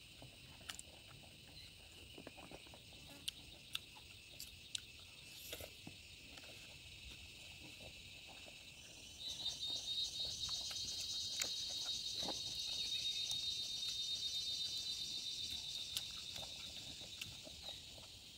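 Insects trilling in a steady high chorus, with a louder, rapidly pulsing trill starting about halfway and fading out near the end. Scattered soft clicks and smacks of eating by hand sound over it.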